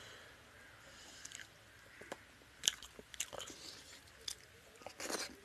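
Close-miked eating sounds: a mouthful of rice and fish curry being chewed, with sharp wet clicks and smacks at irregular intervals and a short louder rustle near the end.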